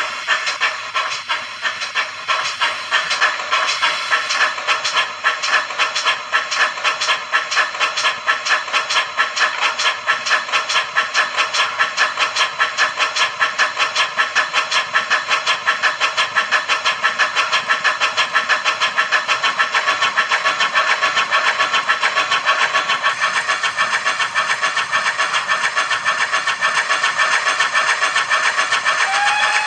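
Sound decoder in a Bachmann 56xx class model tank locomotive playing steam exhaust chuffs over hiss through its small speaker, running at speed. The beats are uneven for the first few seconds, then settle into a quick, even rhythm; a pitched tone comes in at the very end.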